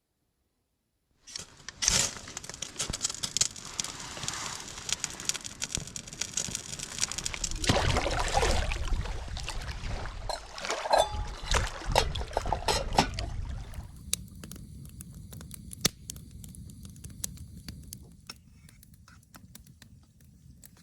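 Water splashing and pattering with many small clicks, starting abruptly about a second in and growing quieter about two-thirds of the way through.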